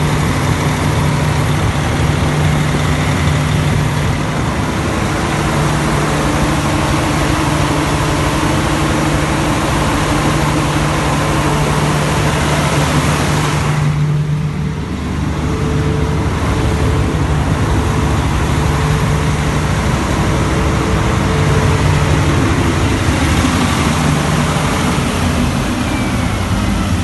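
Cummins C550D5E 500 kVA diesel generator running steadily, a loud even drone with a low hum, easing briefly about halfway before carrying on.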